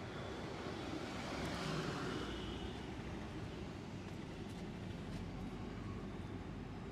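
Steady street traffic noise, swelling a little between about one and two and a half seconds in, with a few faint clicks.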